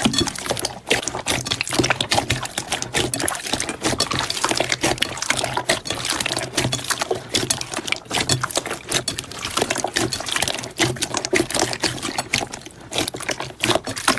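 Wet slime being worked by hand: a dense, irregular run of sticky clicks and small pops.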